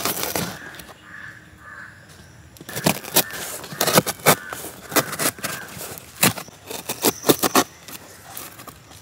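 Kitchen knife cutting through the packing tape and corrugated cardboard of a shipping box, with a quick run of sharp, irregular slicing and tearing sounds from about three seconds in until near the end.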